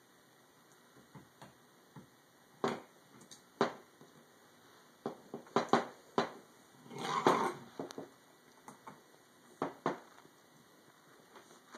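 Scattered clicks and knocks of a paintball marker being handled and set down on a wooden table during reassembly, with one rougher, louder noise lasting under a second about seven seconds in.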